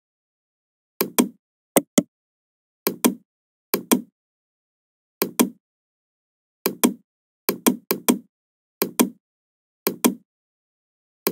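Computer mouse button clicks, short and sharp, mostly in quick pairs a fraction of a second apart, about a dozen pairs spread through the stretch.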